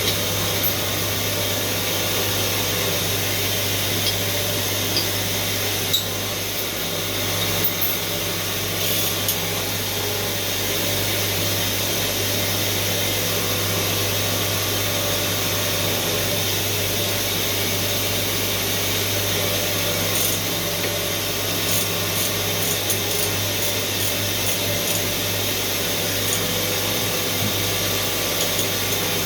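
Doosan T4000 CNC machine running: a steady hum and hiss, with a few light clicks.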